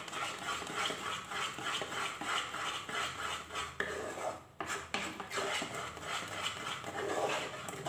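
Spatula scraping and stirring a thick milk-powder paste around a non-stick pan, in repeated strokes about two or three a second with a short break about four and a half seconds in. The paste is cooking down into mawa (khoa), pulling away from the sides of the pan and gathering into a lump.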